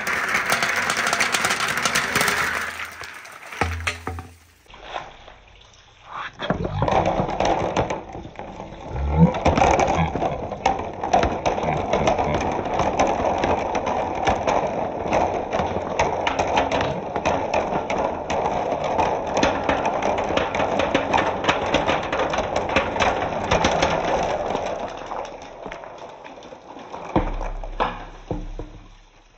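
Many marbles rolling and clattering along a wooden marble run: a dense, continuous stream of small clicks and knocks.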